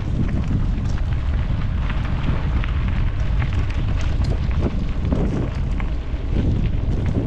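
Wind buffeting a helmet-mounted action camera's microphone while riding a mountain bike along a trail, a steady low rumble with scattered small clicks and rattles from the bike moving over the ground.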